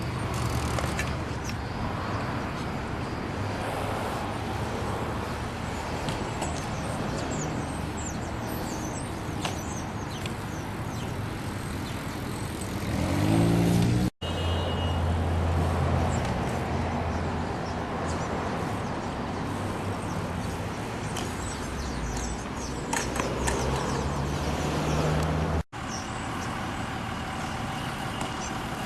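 Motor vehicle engine running with road noise, its pitch rising briefly about 13 seconds in. The sound breaks off abruptly twice.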